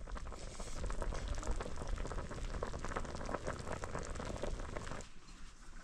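Food cooking in a pot or pan over heat, a dense bubbling crackle of many small pops that cuts off abruptly about five seconds in.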